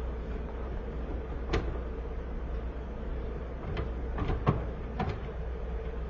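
A dachshund rummaging in a bin of plush toys: scattered knocks and rustles, the loudest about four and a half seconds in, over a steady low hum.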